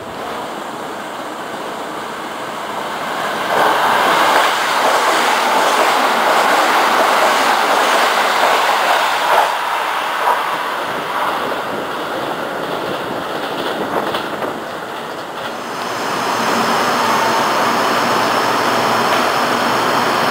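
Kintetsu limited-express electric train running into a station, its wheels clattering on the rails with a few sharp knocks and a light squeal, loudest for about ten seconds. Near the end the sound changes to a steadier hum with a faint high whine, as a train stands at a platform.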